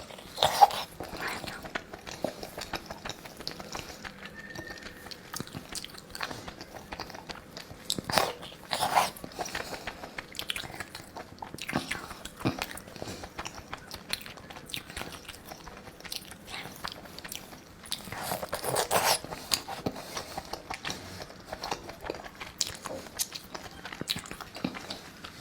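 A person biting and chewing food close to the microphone: the skewered pieces of Sichuan bobo chicken in chili oil, with crunchy bites and chewing clicks, and louder bites about eight seconds in and again around nineteen seconds.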